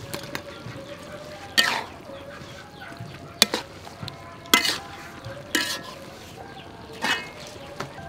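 A metal ladle scraping and clanking against an aluminium wok as shark meat and vegetables are stir-fried, about five loud strokes a second or so apart, each with a short ring. The food sizzles softly underneath.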